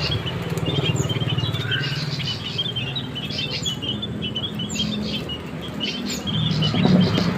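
Many small birds chirping rapidly in high, short notes, with a few quick falling whistles, over a low pulsing sound that swells near the end.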